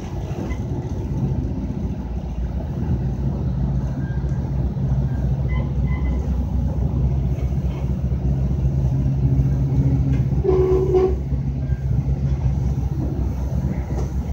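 A moving GO Transit commuter train heard from inside the coach: steady rumble and a low drone as it runs. A short higher-pitched tone sounds a little over ten seconds in.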